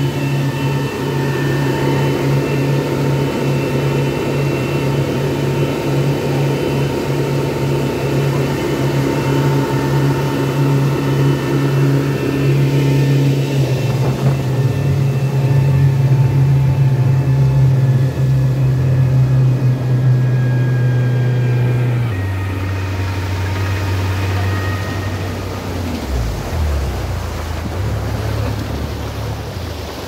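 Twin petrol outboard motors on a motor yacht running steadily at speed, with the rush of the boat's wake. About three-quarters of the way through, the engine note drops to a lower, slightly quieter pitch as the boat throttles back.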